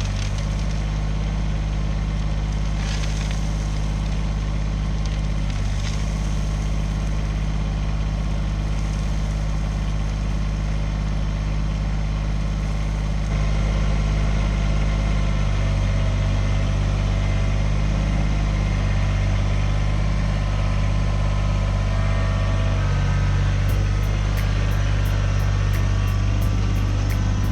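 Kubota BX25 sub-compact tractor's three-cylinder diesel engine running steadily, a little louder from about halfway through.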